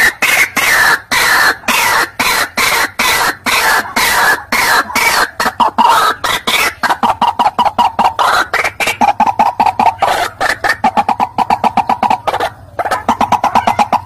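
White-breasted waterhen (kareo padi, ruak-ruak) calling: a loud, rapid, unbroken run of repeated harsh notes, several a second, with a short break about twelve and a half seconds in.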